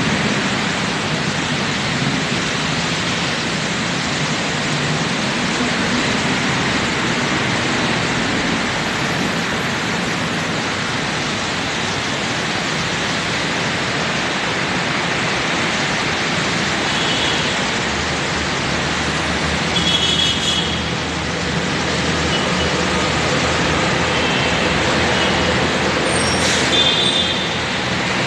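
Steady traffic on a wet road: motorcycles, cars and trucks passing with a continuous hiss of tyres on water. A few short, high-pitched squeals come in the second half.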